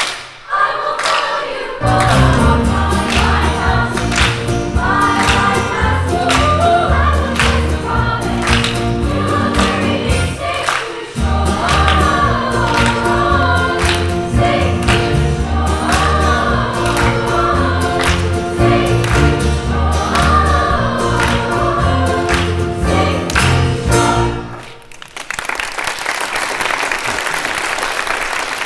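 Children's choir singing a gospel praise song over an accompaniment with a steady beat and heavy bass. The song ends a few seconds before the close, and audience applause follows.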